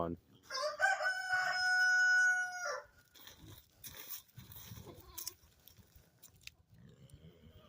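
A rooster crowing once, about two seconds long: a rising start, a long held note, then a drop at the end. Faint scattered clicks and rustling follow.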